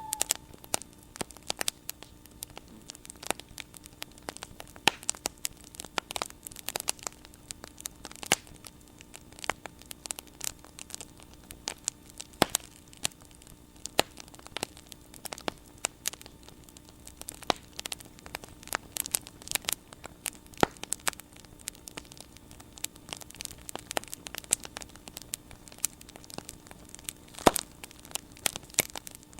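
Burning wood in a bonfire crackling and popping: irregular sharp snaps, several a second, some louder than others, over a faint steady hum.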